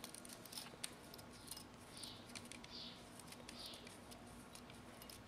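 Faint handling sounds: small clicks and soft rustling swishes as a 12-gauge bronze bore brush is twisted on the threaded end of a cleaning rod by hand.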